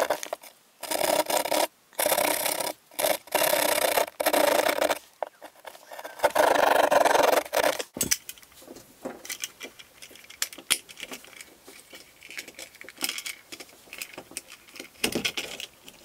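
Hand drywall jab saw cutting through drywall in a series of loud sawing strokes over the first eight seconds or so. After that come softer scattered clicks and rustles as a plastic remodel electrical box is handled and fitted into the cut-out.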